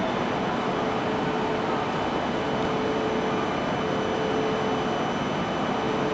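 Steady hum and hiss of a stationary E4 series Max Shinkansen train idling at the platform, its air-conditioning and equipment running, with faint steady whining tones over it.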